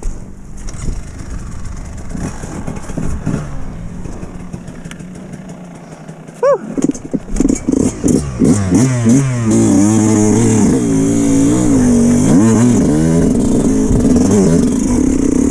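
Yamaha YZ125X two-stroke dirt bike engine being restarted after bogging and stalling. It catches about six and a half seconds in, sputters through a few seconds of choppy throttle blips, then settles into steady running with rising and falling revs as the bike moves off.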